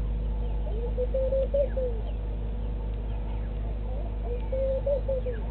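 A dove cooing: a rising, wavering and falling coo of about a second, heard twice, about a second in and again near the end. Faint chirps of other birds and a steady low hum lie under it.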